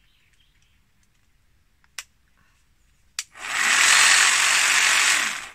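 Two sharp clicks, then a cordless jigsaw starts and runs loudly and steadily for about two seconds before stopping near the end.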